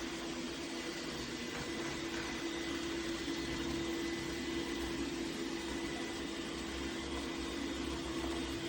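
Dreame X50 Ultra robot vacuum running: a steady motor whir with a constant low hum.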